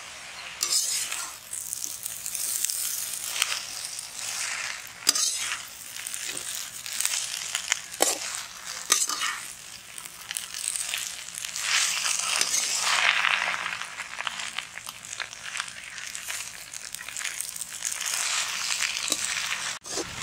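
Noodles being tossed and stirred in a hot iron wok, sizzling as they fry, with the metal ladle scraping the pan and a few sharp knocks against it.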